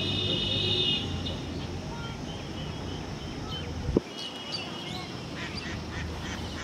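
Birds calling over steady outdoor background noise: a loud nasal call in the first second and shorter calls later on, with a single sharp click about four seconds in.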